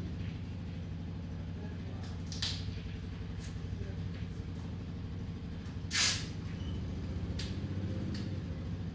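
A vehicle engine running steadily with a low, even drone, with a few short hisses on top; the loudest hiss comes about six seconds in.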